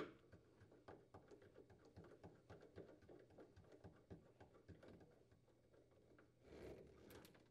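Faint, rapid ticking of a nut driver turning in a screw by hand to fasten a new plastic freezer door closing cam to the metal lower hinge, about three or four ticks a second, with a brief scratchy scrape near the end.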